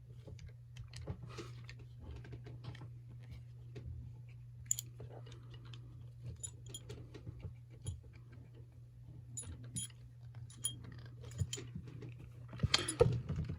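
Small metallic clicks, taps and scrapes of a metal trick bolt puzzle being turned and gripped in the hands while its jammed nut is worked at, over a steady low hum. There is louder handling noise near the end.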